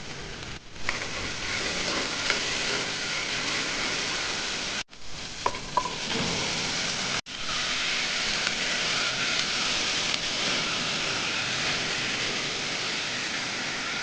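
Food sizzling in hot oil in a pan while being stirred, with a few light clinks of the spoon against the pan near the middle. The sizzle cuts out briefly twice.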